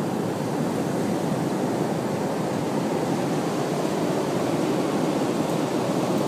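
Heavy ocean surf breaking: a steady, unbroken rushing noise of large waves.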